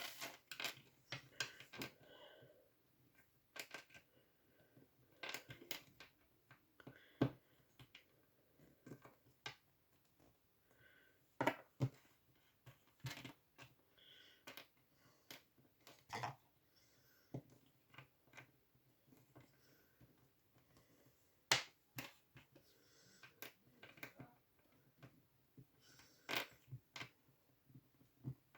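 Small plastic Plus-Plus building pieces being handled and pressed together: irregular sharp clicks and light taps, a few every couple of seconds.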